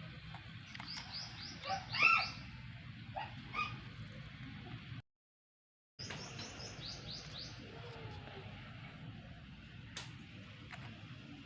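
Birds chirping: quick runs of short, high falling notes, repeated several times, with a few lower calls. The sound cuts out completely for about a second midway.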